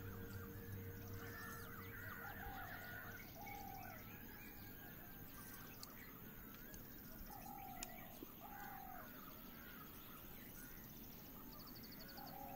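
Faint birds calling: short falling calls and higher chirps in small groups a few seconds apart, with a single soft click about eight seconds in.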